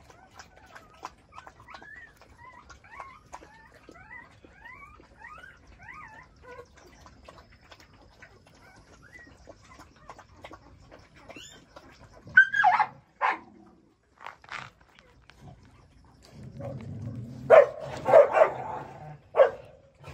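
Young puppy crying in short high-pitched yelps that fall in pitch: two about halfway through, then a cluster of several loud ones near the end. Faint high chirping squeaks run through the first half.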